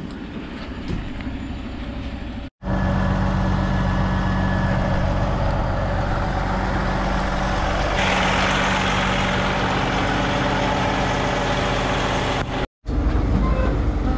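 Log truck's diesel engine: quieter at first, then a loud, steady low engine hum close up. A hiss joins about halfway through, and the sound breaks off abruptly twice.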